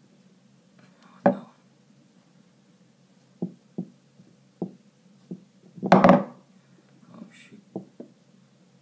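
Golf balls knocking and clicking against one another and the tabletop as they are balanced by hand: a sharp knock about a second in, several light taps, and a louder clatter about six seconds in.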